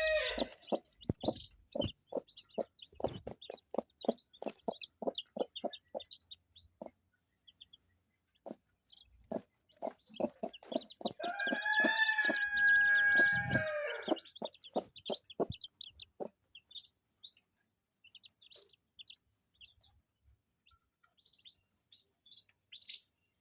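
Chickens clucking in a run of short notes, over high peeping from silver Wyandotte chicks, with one rooster crow lasting about three seconds about halfway through.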